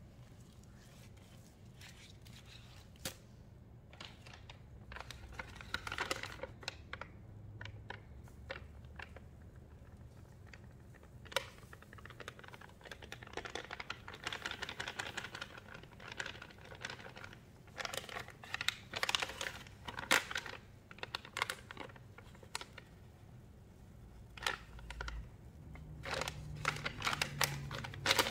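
Sponges loaded with cleaning-powder paste being squeezed by hand: bursts of soft crunching and crackling, growing busier and louder near the end.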